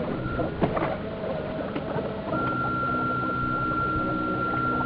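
Electric motor of a radio-controlled model tug whining at a steady pitch, cutting in about two seconds in after a short pause. There are a few brief clattery knocks near the start.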